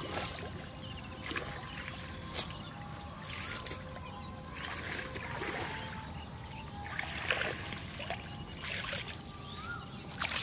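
Shallow muddy water splashing and trickling in short, irregular bursts as a person wades and gropes through it with his hands.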